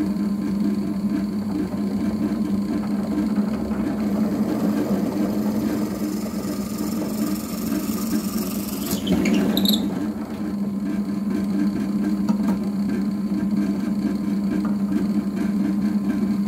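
Benchtop drill press running with a steady electric motor hum while the bit drills into a block of wood; about nine seconds in the hissy cutting noise drops away and the motor hums on.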